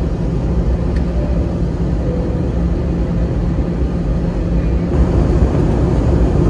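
Steady cabin noise of an Airbus A320 airliner descending: a deep rumble of the turbofan engines and rushing air, with a faint steady hum above it. It grows a little louder about five seconds in.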